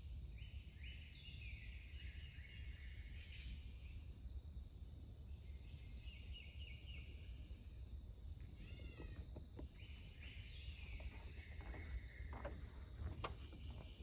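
Birds singing in the woods, with several runs of quick repeated notes. A low steady rumble lies underneath, and a few sharp clicks come near the end.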